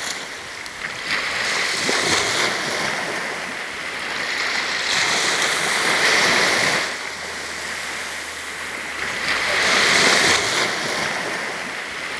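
Sea waves breaking and washing up a sandy beach. The surf swells and falls back three times.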